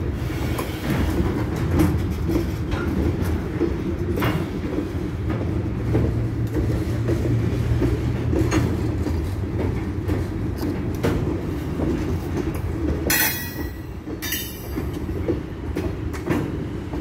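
Freight train of covered hopper cars rolling past close by at speed: a steady low rumble with scattered clicks of the wheels over the rails. A short burst of harsh, high-pitched metallic noise comes about thirteen seconds in.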